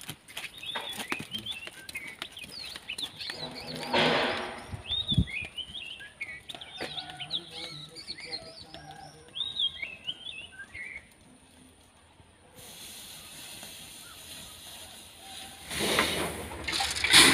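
Small birds chirping with many short, quick calls. Near the end comes a loud, even rushing hiss of steam from a vessel of parboiling paddy.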